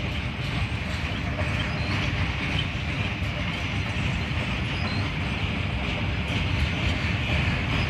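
Norfolk Southern Triple Crown RoadRailer train rolling past: the steel wheels of the rail bogies under the trailers make a steady rumble on the track.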